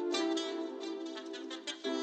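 Background music led by a plucked string instrument, playing quick successive notes.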